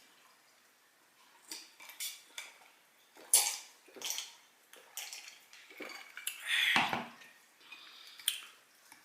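Eating sounds: a fork or spoon tapping and scraping on a dinner plate, with chewing and lip-smacking, heard as a string of separate clicks and smacks. The loudest click comes a little over three seconds in.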